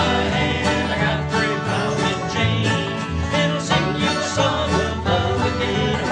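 Instrumental music with quickly plucked strings and a steady rhythm.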